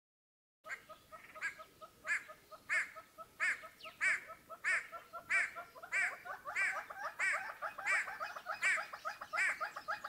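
An animal calling over and over in a steady series, about three calls every two seconds, with a faster run of short chirps underneath. It starts about half a second in.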